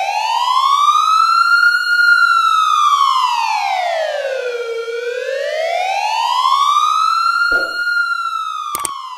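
Siren-like wailing tone that slowly rises and falls in pitch, about two full sweeps up and down, with a couple of short clicks near the end.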